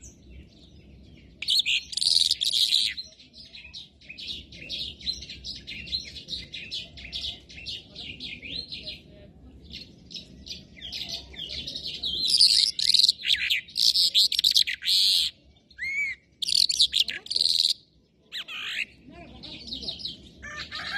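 A caged songbird singing a long, varied song of fast chirps and trills, with short pauses, loudest in bursts about two seconds in and again from about twelve seconds on.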